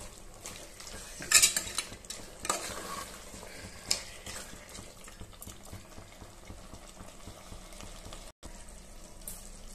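Country chicken pieces sizzling in masala in an aluminium pressure cooker while a metal spoon stirs them, scraping against the pot. Louder scrapes come about a second and a half, two and a half, and four seconds in.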